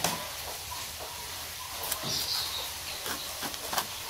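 Faint handling sounds as a kitchen knife is brought to a whole avocado's skin: a few light clicks and taps, and a brief high chirp about two seconds in.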